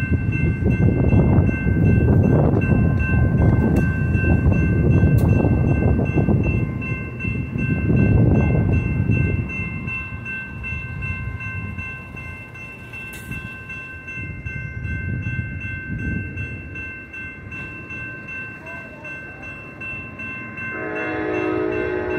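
Amtrak passenger train rolling through a grade crossing, its wheels rumbling loudly for about the first ten seconds, then fading as the last car clears. The crossing's warning bell rings steadily throughout, and a horn sounds briefly near the end.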